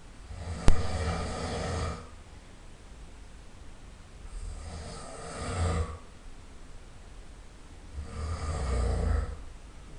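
A person snoring loudly: three long snores about four seconds apart, each lasting a second and a half to two seconds. A single sharp click sounds during the first snore, less than a second in.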